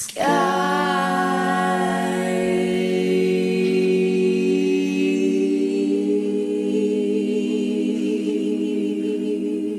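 Several women's voices holding one long a cappella chord in close harmony, with vibrato coming into the lower voices in the second half; the chord cuts off together at the end.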